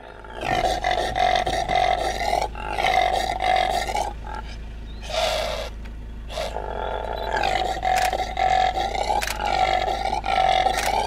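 Male impala roaring, the rutting call: a run of short calls in quick succession, with a few short breaks between bouts.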